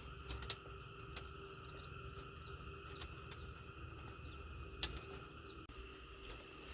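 Steady rural background drone, with a few sharp clicks or knocks: a quick cluster near the start, then single ones about every two seconds.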